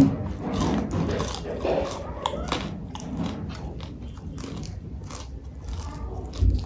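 Close-miked chewing and biting of food, with wet smacks and crunchy clicks in an uneven run. A low thump comes near the end.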